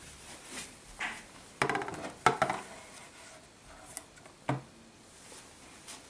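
Hollow rectangular PVC pipe being handled against a wooden table top: a short rattling scrape with a sharp knock about two seconds in, and a duller knock past the middle.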